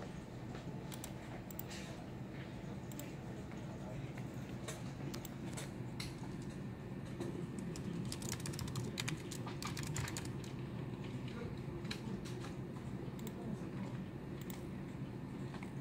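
Typing on a computer keyboard: a quick, irregular run of key clicks, thickest around the middle, over a steady low hum.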